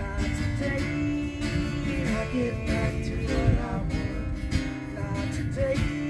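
Acoustic folk trio playing live: strummed acoustic guitar and mandolin, with several voices singing together in long held notes.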